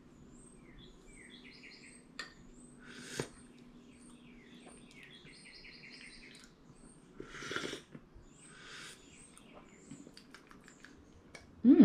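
Coffee slurped from spoons, cupping style: three short, noisy sucking slurps about three, seven and a half, and nine seconds in.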